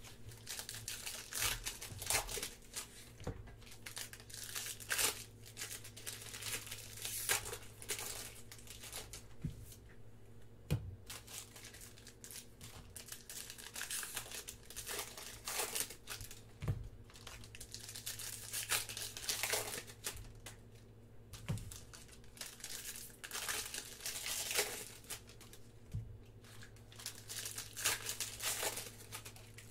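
Foil wrappers of Panini Prizm baseball card packs being torn open and crinkled by hand, in irregular rustling bursts, with a few soft knocks.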